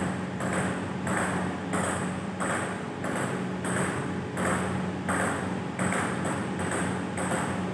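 Table tennis ball being hit back and forth in a steady rally, a sharp click about every two-thirds of a second, over a steady low hum.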